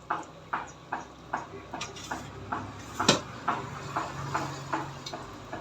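A steady series of light knocks, about two a second, with one louder knock about three seconds in, from kitchen work with utensils.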